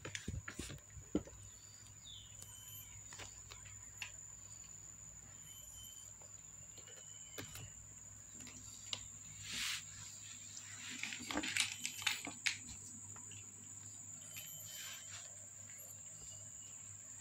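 Scattered light scratches and taps of a small kitten's claws on the wall of a plastic storage box and on its fleece blanket, busiest between about nine and twelve seconds in, over a faint steady high-pitched whine.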